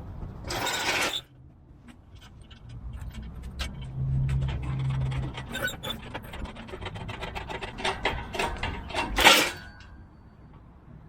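Knocking and scraping as a small tree stump is worked out of the ground: a long run of small clicks and knocks between two short, loud scrapes, one just after the start and one near the end.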